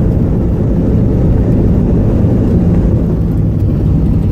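Steady low rumble of a jet airliner heard from inside the passenger cabin.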